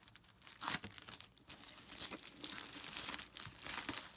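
Thin plastic bag crinkling and rustling as it is pulled off a phone sanitizer's casing: a run of irregular crackles.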